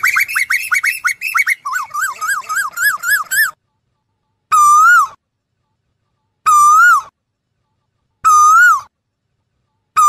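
Asian koel calling: a quick run of sharp, rising whistled calls for the first three seconds or so, then single whistled calls about every two seconds, with dead silence between them.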